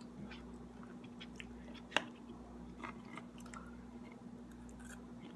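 Faint chewing and biting of canned sardines, with scattered small clicks and one sharp click about two seconds in, over a low steady hum.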